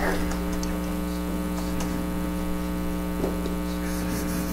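Steady electrical mains hum, a stack of even buzzing tones, with a few faint clicks.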